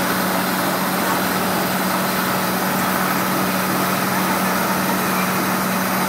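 Cummins 5.9 inline-six diesel of a Blue Bird school bus running steadily at highway speed, heard from the driver's seat with road and wind noise. The engine drone holds an even pitch.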